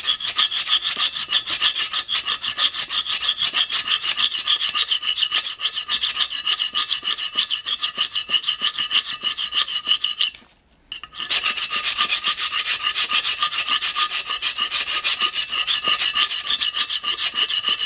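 Hand file rasping back and forth across a block of aluminium clamped in a vise, in fast, even strokes, grinding it down into aluminium powder. The strokes stop for about a second some ten seconds in, then carry on.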